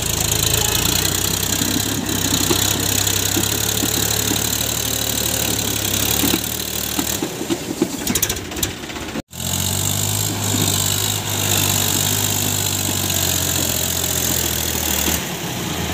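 Powertrac Euro 50 tractor's three-cylinder diesel engine running steadily, hauling a sand-loaded trailer off soft ground onto the road. Around seven to nine seconds the deep engine note thins out under some irregular knocking, then the sound cuts off abruptly and comes back running steadily.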